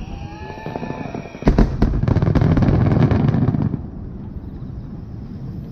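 Aerial fireworks bursting: a thin falling whistle, then a sharp bang about a second and a half in, followed by about two seconds of dense crackling and rumbling bursts that die away.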